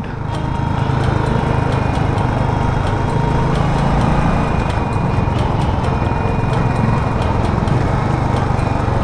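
Royal Enfield single-cylinder motorcycle engine running steadily while riding on the road, with wind noise on the microphone.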